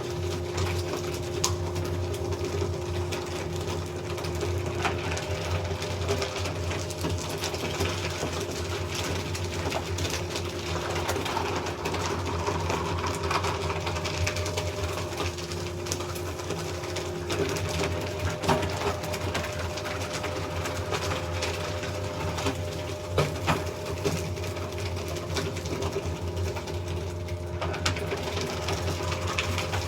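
Electric paper shredder running steadily, its motor humming while paper is fed through the cutters with a crackling rustle and scattered clicks. The pitch of its hum shifts a little about halfway through.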